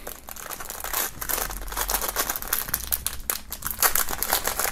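Thin clear plastic bag crinkling and rustling as hands work a metal necklace pendant out of it, in quick irregular crackles.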